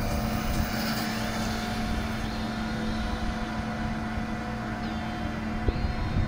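Grapevine pruning machine running steadily, a constant engine drone with a steady hum.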